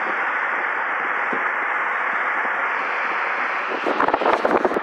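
Steady rushing noise of a passing BNSF freight train. From about four seconds in, rough crackling and low thumps on the microphone join it.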